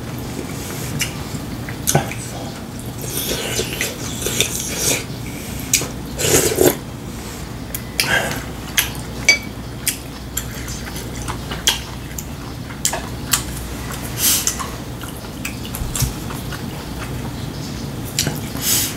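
Irregular clinks and taps of a spoon and chopsticks against ceramic bowls and plates while eating, with a few brief mouth sounds of eating between them.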